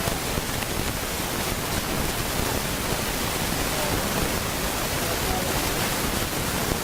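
Steady hiss of static-like noise that drowns out everything else, the sign of a faulty audio recording.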